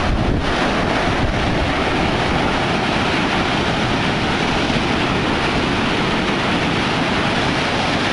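Heavy storm surf breaking close by and washing up the beach at high tide, a continuous loud wash of water, with wind buffeting the microphone.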